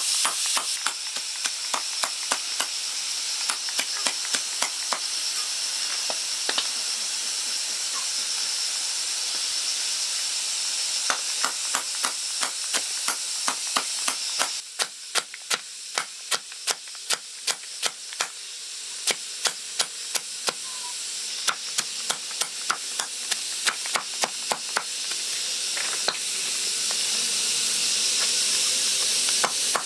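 Repeated sharp knocks, about two a second, over a steady high hiss that drops away for a few seconds about halfway through.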